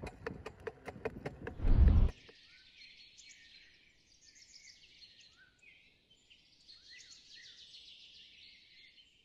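Music with a quick, even percussive beat ends in a loud low boom about two seconds in. Birds then chirp and twitter in a thin, high-pitched forest ambience.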